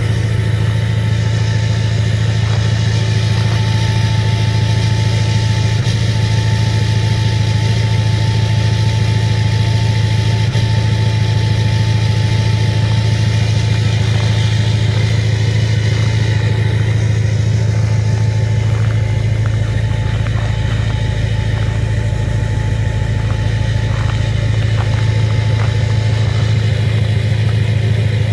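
LBZ Duramax 6.6-litre V8 turbo-diesel idling steadily at the tailpipe just after a −18°F cold start, still stone cold and running rough, not yet firing cleanly while it puffs white smoke.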